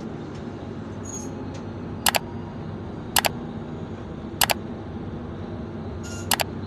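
Steady low rumble of a passenger train coach rolling slowly out of a station. Over it come four sharp double clicks, a second or two apart: a mouse-click sound effect.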